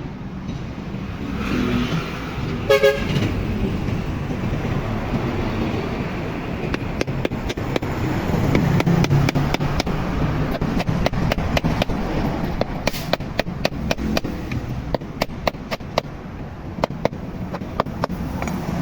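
Steady rumbling noise with a short pitched toot about three seconds in, then a run of sharp, irregular clicks through the second half.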